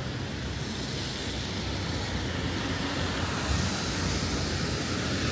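Steady city street noise in the rain, a broad hiss of traffic and wet-weather sound that grows gradually louder toward the end.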